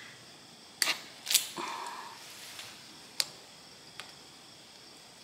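Hand cutters snipping plastic zip ties off a fence post: four sharp clicks, the loudest just over a second in.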